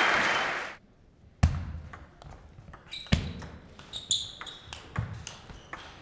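Crowd applause cutting off under a second in, then a table tennis rally: the ball clicking off the table and the rackets in a quick, irregular series, with a few heavier thumps among the clicks.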